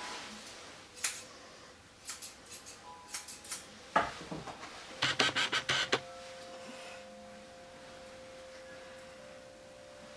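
Curved grooming shears snipping the terrier's head coat, in short runs of quick snips, the densest run of five or six a little past halfway. A faint steady tone hangs behind the second half.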